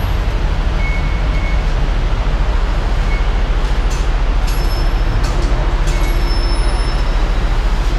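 Steady, loud low rumble of Skytrain station background noise, with a few faint short high tones and light clicks.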